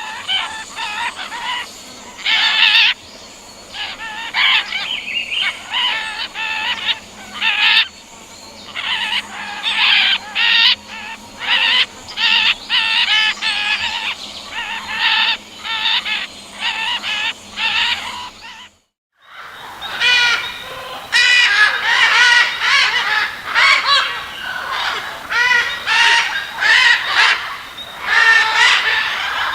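Parrots calling: many short chirps and squawks in quick succession. About two-thirds of the way through the sound cuts out for a moment, and a different recording of parrots begins, with denser chattering calls that waver in pitch.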